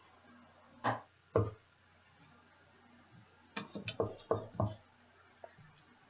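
Wax melt pieces and a crinkle cutter being handled on a plastic cutting board: two sharp knocks about a second in, then a quick run of five or six knocks a little before the halfway point of the last part.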